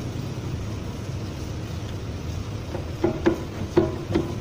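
Five or six light metallic clinks, each ringing briefly, starting about two and a half seconds in as the annular cutter is fitted into the magnetic drill's arbor. They sound over a steady low workshop rumble.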